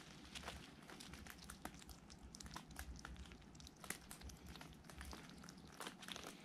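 Faint, irregular little clicks and crunches of a hedgehog chewing food.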